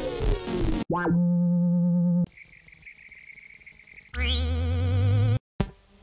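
Ableton Live's Analog virtual synthesizer playing a run of algorithm-generated patches, one after another, each cut off abruptly. First a noisy tone with a falling pitch, then a sharp downward sweep into a low steady drone, then a thinner patch of high steady tones, then a wavering patch with a rising sweep, before a brief near-silence.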